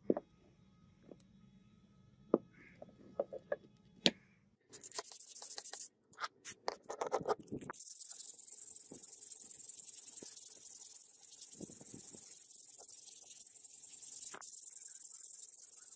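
A restored hatchet with a metal handle being handled on a concrete floor: a few sharp clicks and taps, then a few seconds of scraping and rustling. From about halfway a steady high-pitched hiss sets in and carries on.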